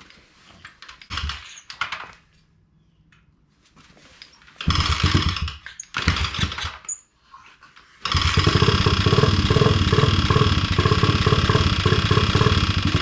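Chinese pit bike's single-cylinder four-stroke engine being kick-started on choke: two short coughs, then it catches about eight seconds in and keeps running steadily. This is its first start in about three years.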